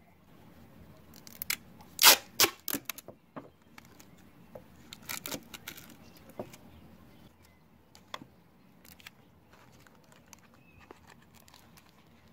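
Adhesive tape pulled off the roll in a few short, sharp rips about two seconds in and again around five seconds, then soft handling and crinkling as the tape is pressed on.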